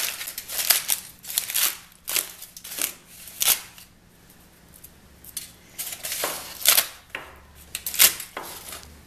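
Aluminium foil crinkling in irregular bursts as it is unwrapped by hand, with a quieter lull about four seconds in and a few sharp clicks later on.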